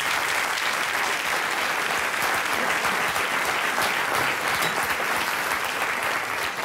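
Audience applauding: many people clapping in a dense, steady, even patter.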